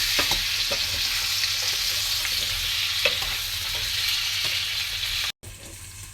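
Chopped vegetables frying in hot oil in a pan, sizzling steadily while being stirred, with a few short scrapes against the pan. About five seconds in, the sound cuts out for an instant and the sizzle carries on quieter.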